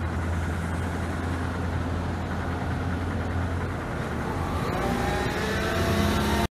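Car engine idling while stopped at a light, a steady low hum. From about two-thirds of the way in, a rising whine joins it, like a vehicle pulling away and accelerating.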